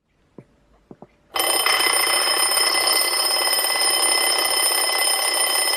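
An old wind-up alarm clock's bell rings loudly and continuously. It starts suddenly about a second and a half in, after a few faint clicks.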